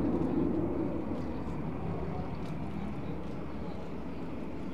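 Panavia Tornado's twin RB199 turbofans at taxi power as the jet rolls along the taxiway: a steady low rumble that fades slowly as it moves past.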